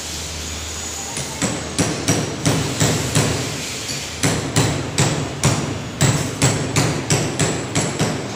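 Flexo label printing machine running, with a regular sharp knock about three times a second that starts over a second in and pauses briefly midway.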